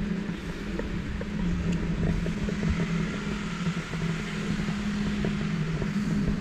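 Steady low hum of the Removu R1 gimbal's motors, two close droning tones picked up by the GoPro mounted on it, over a haze of city street noise.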